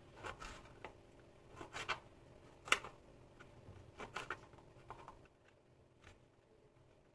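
Scattered rustling and scraping of objects being handled, with a sharp click a little under three seconds in, over a faint steady hum.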